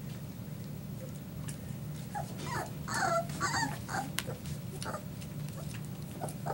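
Border Collie puppies at play, one giving a quick run of short, high-pitched whining yelps for about two seconds in the middle, over a steady low hum with scattered light clicks.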